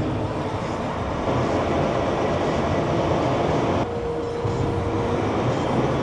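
Engine of a site loading machine running steadily. A brief steady whine comes in about four seconds in.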